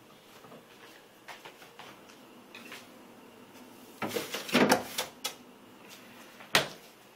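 A freezer being opened and shut: a burst of rustling and knocking about four seconds in as a container goes back inside, then the door closing with a single sharp thump near the end.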